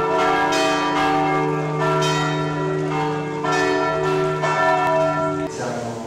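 Church bells ringing, several bells of different pitch struck one after another, each tone ringing on over a steady low hum note. The ringing cuts off suddenly about five and a half seconds in.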